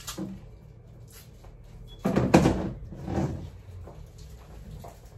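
White plastic stackable chairs being handled and knocked against each other, with a loud clatter about two seconds in and a weaker one about a second later.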